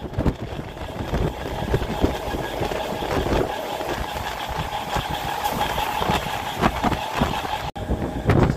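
MEMU electric multiple-unit train running along the line, heard from the open doorway of a coach: a steady rolling rumble with irregular clatter from the wheels on the rails.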